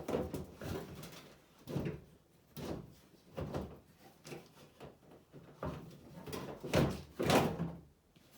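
Irregular clunks, knocks and rattles of metal parts being worked inside a Chevy C10 squarebody's steel door shell as the window regulator is loosened. Two louder knocks come near the end.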